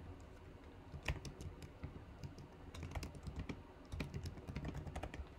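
Typing on a computer keyboard: faint, irregular runs of key clicks.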